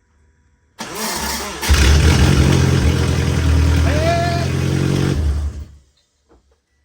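Subaru STI's turbocharged flat-four engine cranking on the starter for a moment, then catching and running loud and steady for about four seconds before it is shut off. This is its first start after a rebuild.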